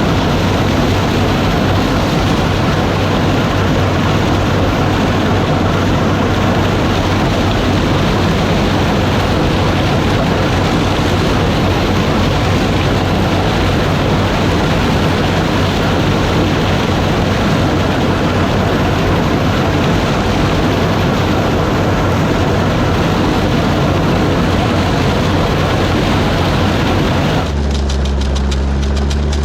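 Gleaner combine harvesting corn: the engine and threshing machinery run loud and steady. Near the end the machinery noise drops away abruptly, leaving a steady engine idle hum.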